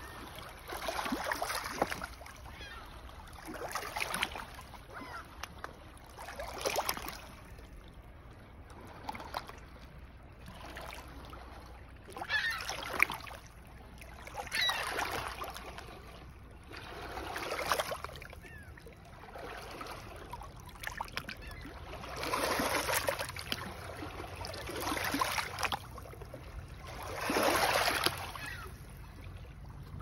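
Small lake waves washing in over loose flat stones and draining back between them. They come in swells every two to five seconds, each with a fizzing, trickling crackle among the rocks, over a faint steady low rumble.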